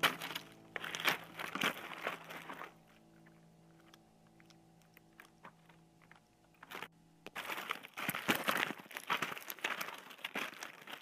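Crunching, crinkling sound effects in two stretches: one at the start lasting a couple of seconds, and a denser one from a little past halfway to the end. A faint steady tone sits in the quieter gap between them.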